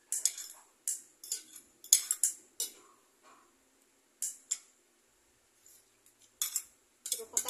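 Metal fork and spoon clinking and scraping against a plate as rice is scooped up, in short irregular clusters with a quiet gap of about two seconds in the second half.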